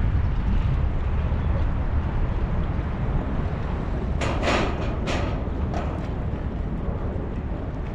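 Wind buffeting the microphone as a steady low rumble by the sea, with a few short, sharper rustling bursts about four to five seconds in.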